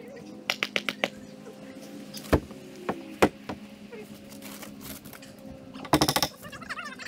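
Sharp knocks and taps on T1-11 plywood siding as a panel is set against the wall: a few quick taps, two hard knocks, then a rapid clatter near the end.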